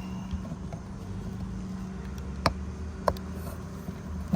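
Two sharp clicks of hard parts being handled, about two and a half and three seconds in, as the oil filter housing cap and its rubber sealing rings are worked on, over a steady low hum.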